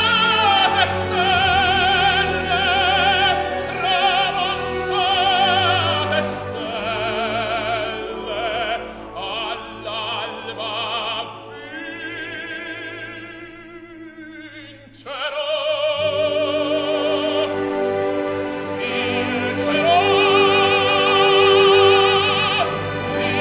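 Operatic music: a singer with wide vibrato over orchestral accompaniment. It falls to a quieter passage about halfway, then swells back in loudly.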